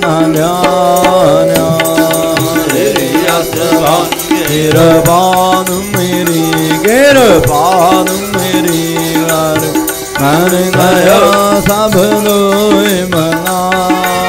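Sikh devotional kirtan: voices singing a hymn over a steady harmonium drone. About seven seconds in, one strong note swells up and slides back down.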